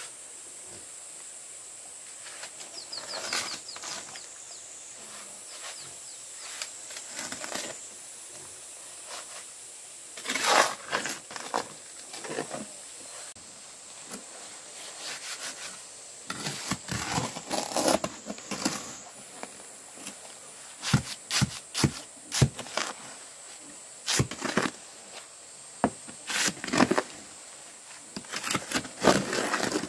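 Irregular clusters of knocks and scrapes from manual building work with tools and materials, coming in short bouts, over a steady high-pitched hiss.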